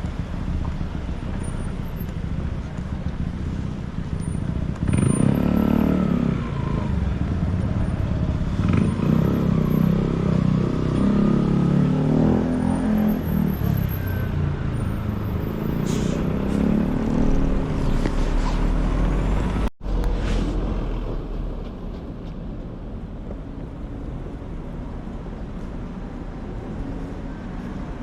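City street ambience: road traffic running by and the chatter of passers-by. It is louder through the middle, then drops out for an instant about twenty seconds in and continues more quietly.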